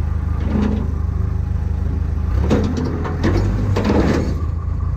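A large engine running steadily, with several short clattering knocks over it in the middle.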